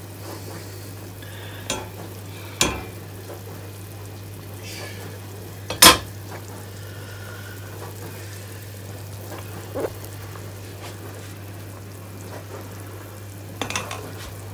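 Pot of mutton stew simmering on the stove with a steady bubbling sizzle, broken by several sharp knocks and clanks from the steel pot and its lid being handled, the loudest about six seconds in. Near the end a wooden spatula knocks and stirs in the pot.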